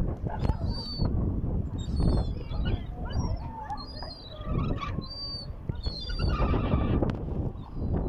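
Large gulls calling over and over with short, high, squealing whistles, several at a time, while feeding. A steady low noise runs underneath.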